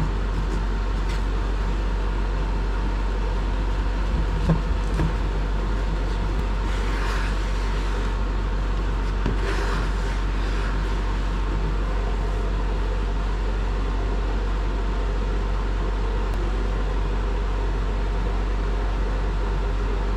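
Steady drone of an electric fan running, with faint scraping of a plastic putty spreader working fiberglass glass putty and a few light knocks about four and a half seconds in.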